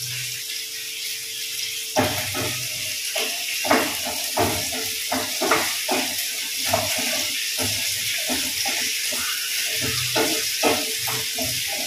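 Shallots sizzling as they fry in hot oil in a pan, with a spatula scraping and knocking against the pan in quick irregular strokes from about two seconds in.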